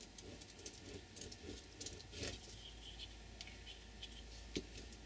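Glue stick rubbed back and forth over paper: faint scratchy strokes with small clicks, and a sharper tap near the end.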